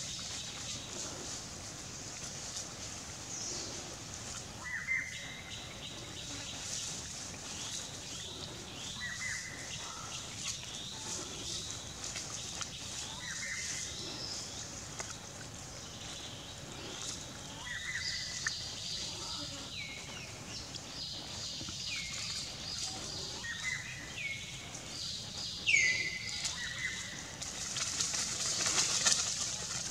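Animal calls in forest: short whistled calls that drop in pitch and level off, repeating every few seconds and more often toward the end, with one louder call near the end. A steady high hiss runs underneath.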